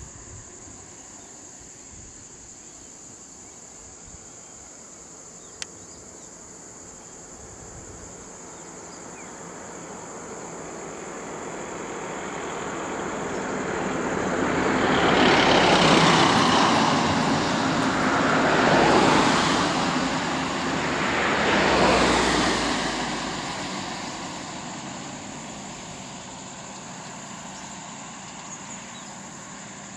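Three road vehicles driving past close by one after another on a paved road. Their engine and tyre noise builds from about ten seconds in, peaks three times a few seconds apart, then fades as they drive away.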